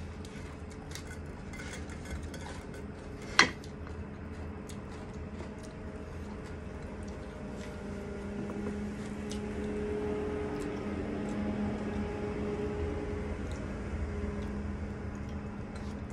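Eating at the table: small clicks and taps of a plate and food being handled by hand, with one sharper knock about three seconds in. A faint low steady hum joins in the background about halfway through.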